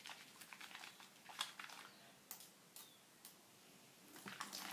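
Faint wet crackling and clicking of Castile soap lather being worked between wet hands, the bubbles frothing.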